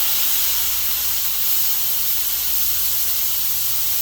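Smash burger patties sizzling on a 22-inch Blackstone flat-top griddle: a steady, high hiss.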